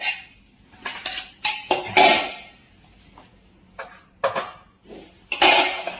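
Irregular clattering and clinking of hard household objects, like dishes being knocked about: about a dozen short, sharp knocks and rattles, the loudest about two seconds in and again near the end.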